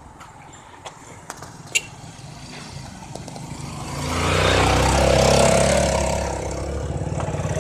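A motor vehicle passing close by: engine and road noise swell up about halfway through, then ease into a steady engine running with a low pulsing beat.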